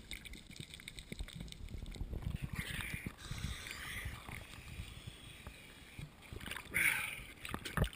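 Sea water sloshing and lapping against a waterproof camera housing at the surface, with many small crackles and a couple of brief hissy splashes.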